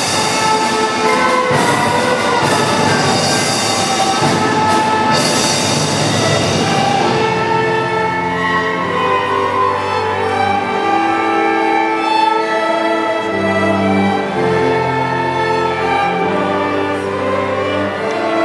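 Symphony orchestra playing: a loud, dense passage with several sharp hits for the first few seconds, then thinning about seven seconds in to held notes from the violins and cellos.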